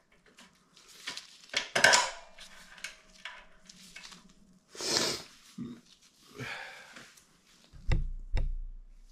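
Metal parts clinking and scraping as a moped's brake pedal is worked onto its greased pivot shaft by hand, with two sharp metallic knocks near the end.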